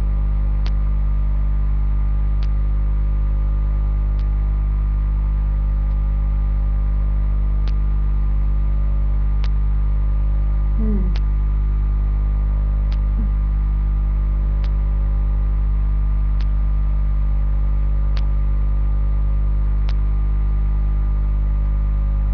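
Steady electrical mains hum carried in a webcam's audio, a strong low buzz that does not change. A faint click repeats about every second and three quarters.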